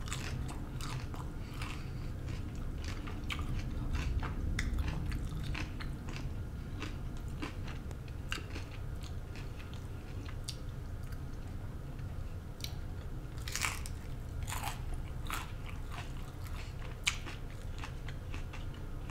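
A person chewing and biting crunchy fried fast food close to the microphone: a run of small crisp crunches, with a few louder crunches in the second half, over a steady low hum.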